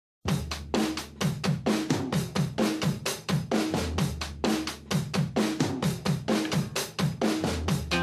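Music intro: a drum-kit beat of kick, snare and hi-hat, starting suddenly a moment in and keeping a steady rhythm of about four hits a second.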